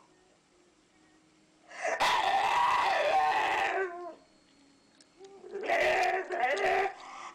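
An animal calling loudly twice, each call lasting about a second and a half to two seconds, with a quiet gap between.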